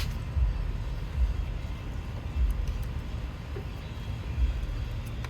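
A low, uneven rumble that swells and fades every second or so, with no other clear sound over it.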